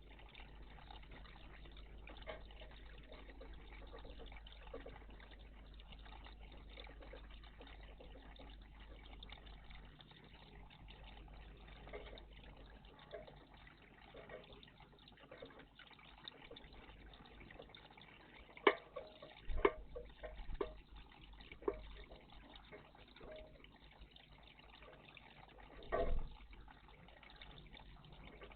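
Faint water trickling and dripping in a garden bird bath, with a few sharp clicks about two-thirds of the way through and a louder knock near the end.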